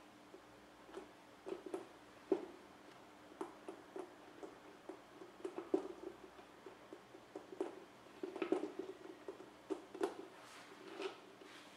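Scattered soft taps and light knocks in irregular clusters as hands press a sponge cake layer down onto a plate around its edges, over a faint steady hum.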